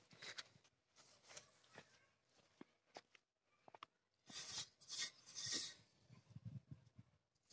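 Faint rustling and rubbing of hands handling dough in an enamel bowl, with a few light clicks. The rustling is loudest in a cluster of short bursts around the middle.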